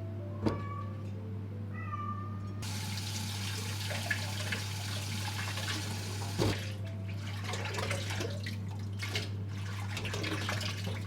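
Water running, as from a kitchen tap into a sink, starting about two and a half seconds in over a steady low hum. Before it come a few short, high-pitched squeaky notes.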